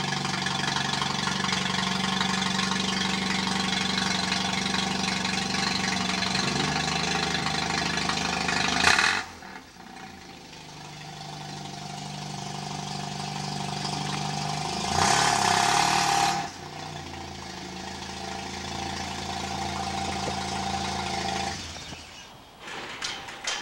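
1981 Mazda RX-7 GSL's 12A rotary engine idling steadily through straight headers and a dual-inlet exhaust muffler, with one short rev about fifteen seconds in.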